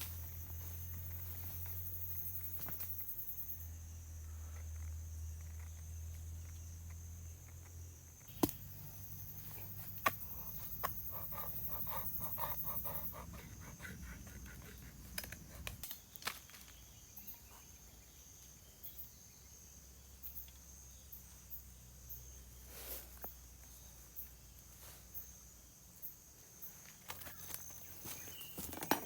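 Riverside outdoor ambience: a steady high insect drone with a low rumble through the first half, and scattered clicks and knocks from handling camp or fishing gear.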